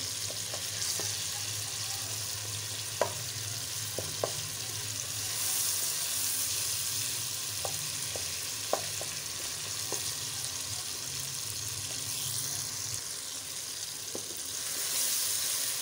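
Chopped tomatoes sizzling in hot oil in a karahi as a wooden spatula mashes and stirs them. A few sharp knocks of the spatula against the pan cut through the steady sizzle.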